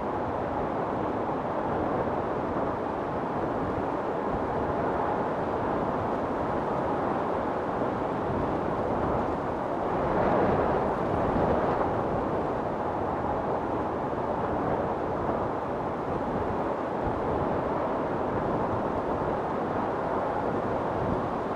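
Wind storm blowing in a steady rush, swelling in a stronger gust about halfway through.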